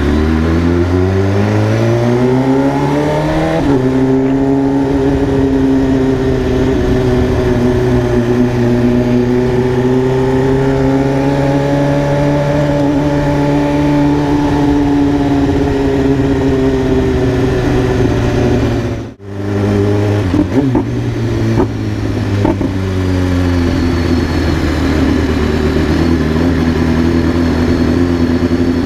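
BMW S1000RR sport bike's inline-four engine accelerating hard, its pitch climbing steeply until an upshift about four seconds in, then running at a steady cruising note that slowly rises and falls. The sound drops out briefly about nineteen seconds in before the engine carries on.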